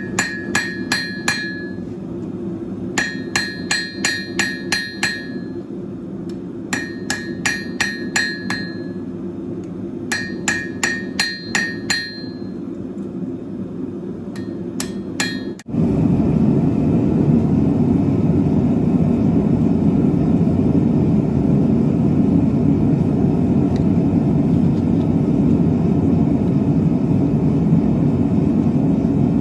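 Hand hammer forging a red-hot steel feather on an anvil: runs of about five to seven quick ringing blows every few seconds, over the steady roar of a propane forge burner. About halfway through the hammering stops suddenly and a louder steady forge roar takes over.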